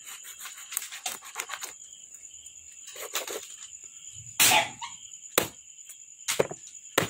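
A large, dull kitchen knife chopping through raw chicken and bone onto a plastic cutting board. The chops come irregularly, sometimes a few in quick succession, with the loudest and longest hit about four and a half seconds in.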